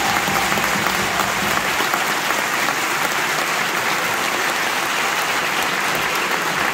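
A large theatre audience applauding steadily at the end of a song, a dense, even wash of clapping.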